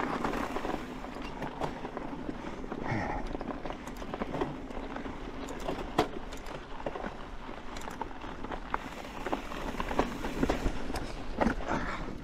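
Orbea Wild FS mountain bike rolling over a rocky gravel trail: steady tyre crunch and rumble, with frequent sharp clicks and rattles from the bike over the rocks.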